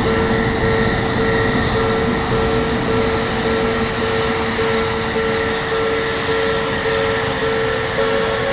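Japanese railroad crossing alarm ringing, a steady repeating tone broken by short gaps, over the running noise of a passing train.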